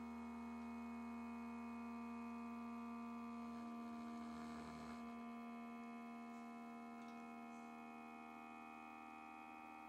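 Stepper motors of a scratch-built motion-control camera rig driving the camera smoothly along its axis during a test run: a faint, steady whine of several held tones, with a brief rougher noise about four seconds in.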